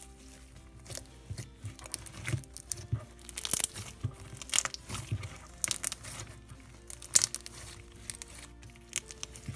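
Slime being squeezed and played with, giving many short, irregular crackles and clicks, thickest in the middle, over background music.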